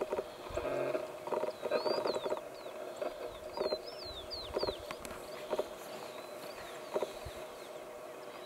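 Guanaco giving repeated rattling, quack-like alarm calls as a puma chases it. The calls come in quick succession for the first couple of seconds, then single calls about once a second, with small birds chirping faintly and high above them.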